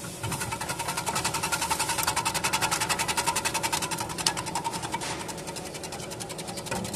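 Electric vegetable cutting machine running, with a rapid, even mechanical clatter that eases off about five seconds in.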